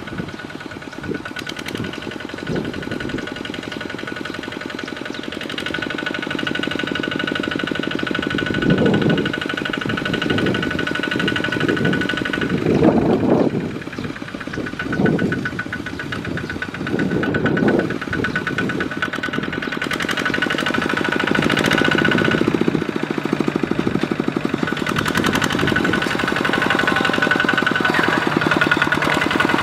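Single-cylinder diesel engine of a two-wheel walking tractor chugging under load as it hauls its trailer through deep mud, its fast steady firing swelling louder several times through the middle.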